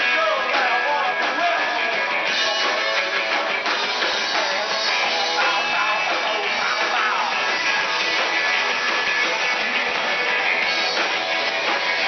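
Live rock band playing, with electric guitar and drums and a singer's voice in places, loud and continuous. Heard through a small camera's microphone, with little bass.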